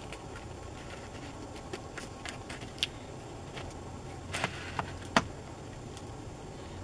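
Scattered light clicks and rustles of hands working a cord around a wooden stick toggle at the corner of a plastic tarp, with a sharper click just after five seconds in, over a steady low background rumble.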